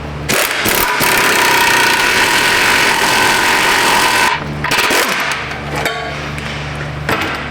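Air impact wrench running in one burst of about four seconds, turning an exhaust pipe expander to stretch the end of a thin exhaust pipe so the new muffler pipe slides over it. A steady low hum follows once it stops.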